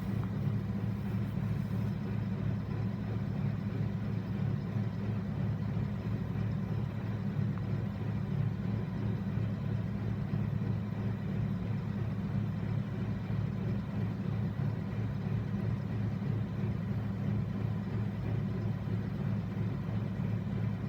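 Tractor engine running steadily at constant speed, driving a Massey Ferguson baler through the PTO: an even, unbroken low hum.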